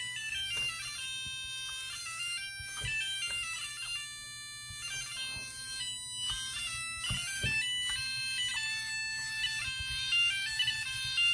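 Itty Bitty Buggy robot's buzzer playing a run of electronic beeping notes that step up and down in pitch several times a second, as its colour sensor reads the coloured note zones it drives over. A few light knocks sound between the notes.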